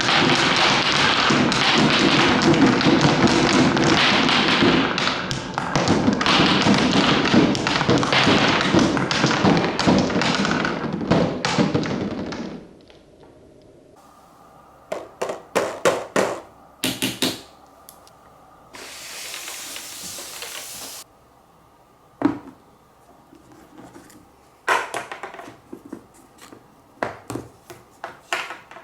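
Many balls rolling and clattering down a wooden marble run, a dense continuous rattle that stops suddenly about twelve seconds in. After that come scattered clicks and knocks as single balls drop through the course, with a steady hissing roll of about two seconds in the middle of the second half.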